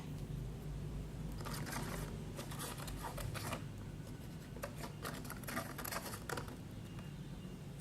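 Stirring stick scraping around a bowl of glue mixture with colour and glitter being mixed in for slime, in irregular clusters of scratchy strokes over a steady low hum.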